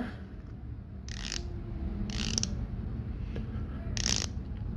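Rotating bezel of a Swiss dive watch being turned in three short, quick flicks about a second apart, each a rapid run of crisp metallic ratchet clicks. The clicking is very sonorous.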